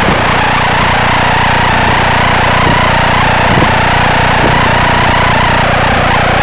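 Electric motor and propeller of a Parkzone Spitfire RC plane in flight, heard from its onboard camera: a steady high whine that wavers slightly in pitch with the throttle, over a constant rush of air.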